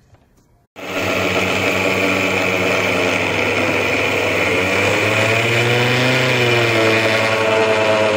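Electric mixer grinder switched on about a second in, its motor running at full speed as it grinds roasted peanuts into powder in the jar. The pitch dips and rises a little past the middle as the load shifts.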